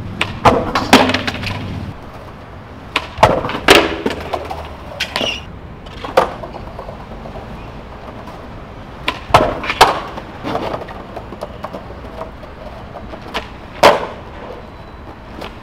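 A skateboard's wooden deck popping and clattering on concrete: about a dozen sharp clacks of tail snaps and the board landing and bouncing, spread through with the loudest near the start, around four seconds in and near the end.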